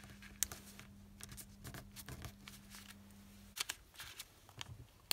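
Origami paper being folded and creased by hand: faint, irregular rustles and small crisp ticks as the fold is pressed flat.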